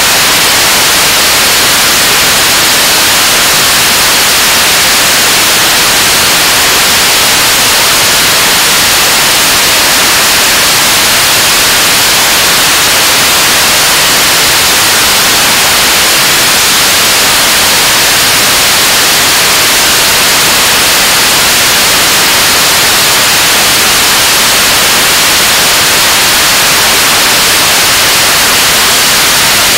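Korean launch vehicle's 7-tonne-class kerosene–liquid-oxygen rocket engine, second test unit, firing at steady thrust in the middle of a 580-second hot-fire test. It makes a loud, even rushing noise with no tone in it and no change, heaviest in the hiss range.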